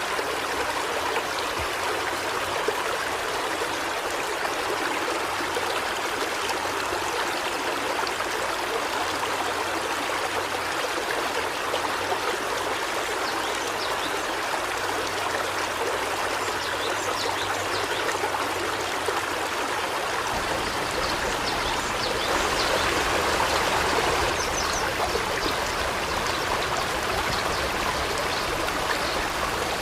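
River water flowing over rocks in a steady rush, swelling slightly about two thirds of the way in.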